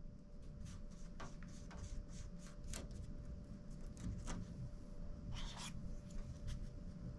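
Wooden stick scraping and dabbing as epoxy thickened with colloidal silica is pressed into holes in a fiberglass hatch edge. The sound is short, faint, scratchy strokes at an uneven pace.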